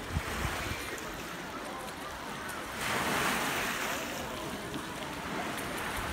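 Small waves washing onto a pebble beach, with one louder wash about three seconds in. A brief low thump of wind on the microphone just after the start.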